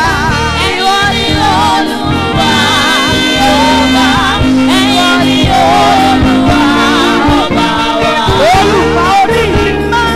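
Gospel worship song sung live by a woman into a microphone, her voice wavering on long held notes over steady instrumental backing with a beat.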